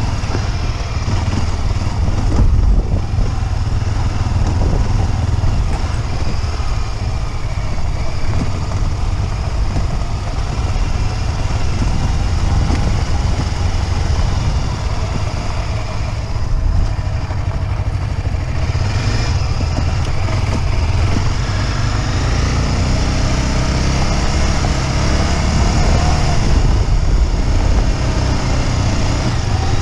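Motorcycle engine running steadily while riding, with a heavy low rumble throughout.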